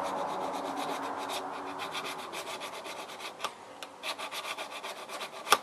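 A coarse EZE-LAP diamond hone rubbing in quick repeated strokes along the bevelled cutting edge of garden snips, sharpening the blade; the strokes grow fainter, and a sharp click comes near the end.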